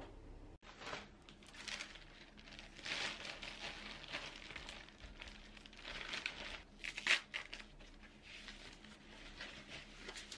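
Shopping bag crinkling and rustling as it is handled and a jar is taken out, in uneven rustles, the loudest about seven seconds in.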